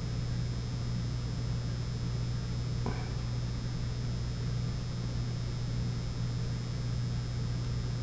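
Steady low electrical hum with a faint hiss, and one faint short sound about three seconds in.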